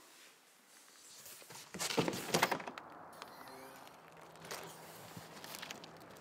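A cardboard box being slid and set down in a car boot: a quick run of scraping and knocking about two seconds in, the loudest part, followed by a few lighter knocks.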